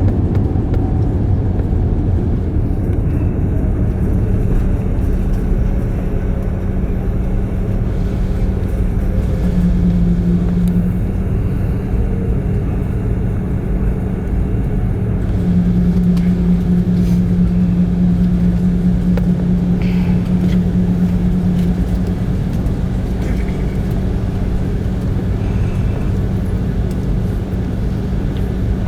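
Cabin noise inside an Airbus A330 rolling on the ground just after landing: a steady low rumble of the engines and landing gear, with a droning hum that swells briefly about ten seconds in and again for several seconds from about sixteen seconds in.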